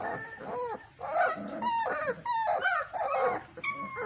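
A litter of bully puppies whining and yelping: many short, high calls a few each second, overlapping at different pitches.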